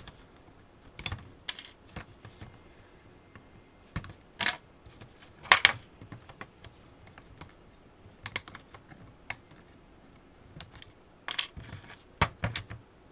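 Small flush cutters snipping the metal connecting strips on the cells of a Dyson V8 lithium-ion battery pack: irregular sharp metallic clicks, some in quick pairs. The strips are cut back so they are less likely to short the cells.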